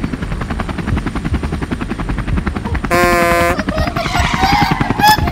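Cartoon sound effects: a fast, steady chopping pulse like a helicopter rotor runs throughout. About three seconds in, a short horn-like blare sounds, followed by high, squeaky sliding chirps.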